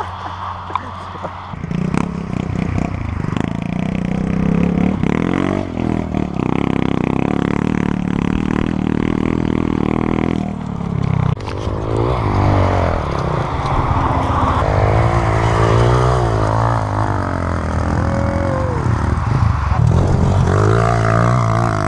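Small dirt bike's engine running under load, its revs rising and falling as it is ridden over rough ground. It picks up strongly about two seconds in.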